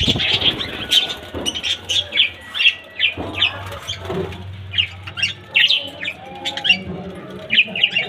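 Budgerigars chirping and chattering: many short, high chirps, several a second, overlapping in an irregular stream.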